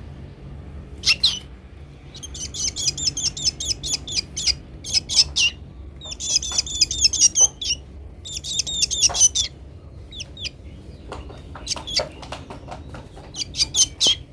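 Rescued baby bird chirping in rapid high-pitched runs, several calls a second, in repeated bouts with short pauses between. Lots of chirping, which the owner takes as a sign of a super healthy bird.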